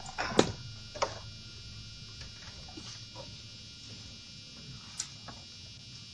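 Two sharp knocks from a motor scooter being handled and set upright, about half a second and a second in, then a faint steady buzzing hum with one small click near the end.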